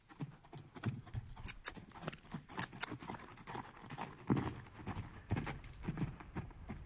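Hoofbeats of a horse cantering loose on sand footing: a run of soft thuds with sharper knocks between them.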